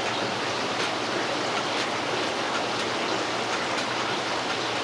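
A steady rushing hiss throughout, with faint light rattles about once a second from a spice shaker being shaken over fish fillets.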